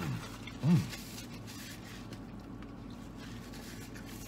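A man with his mouth full of burger gives two short "mmm" hums of enjoyment within the first second, each rising then falling in pitch, the second louder. Soft chewing follows.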